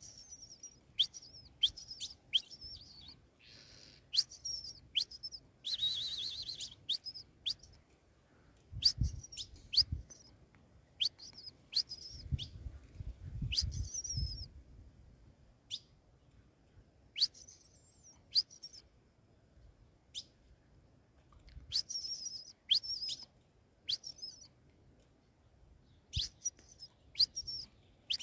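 Ultramarine grosbeak (azulão) calling: sharp, brief chip notes repeated throughout, mixed with short warbled song phrases, and a brief rustling hiss about six seconds in.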